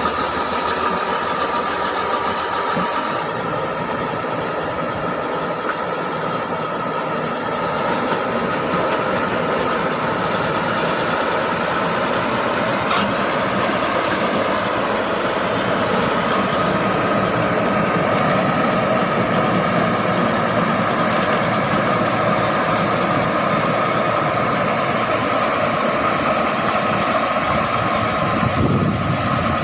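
Bulldozer's diesel engine and machinery running steadily, a continuous loud mechanical noise with a steady high whine through it and one sharp click about halfway.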